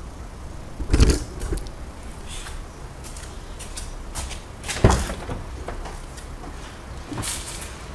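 Dull knocks from the front-left wheel and suspension of a Peugeot Bipper: two louder ones about four seconds apart, with lighter clicks between. This is the 'tak tak' front-end noise being diagnosed.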